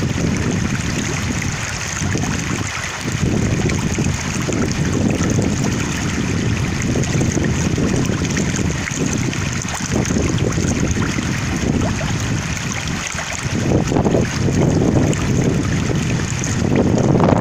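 Flowing water with winter wind gusting over the microphone: a continuous low rushing that swells in gusts, loudest near the end.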